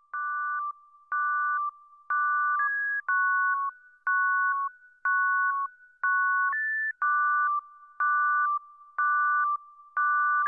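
Electronic beeps, about one a second, each a short chord of two pure tones that steps to new pitches from beep to beep like a simple melody, with a click at the start of each.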